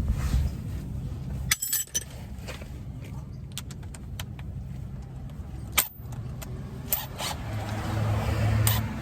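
Metal hand tools, a wrench and socket, clinking and clicking against the brake caliper bolts, in several sharp separate strikes, over a steady low hum.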